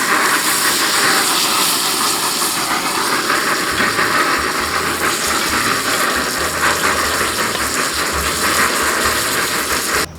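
Ribeye steak sizzling steadily in a hot pan of fat, cutting off suddenly just before the end.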